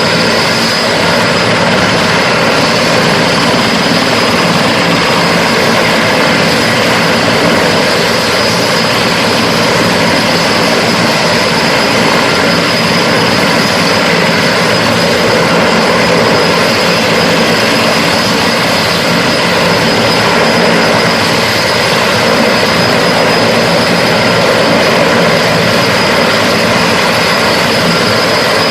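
Large firefighting helicopter running steadily at close range: turbine engines with a steady high whine over the rotor noise.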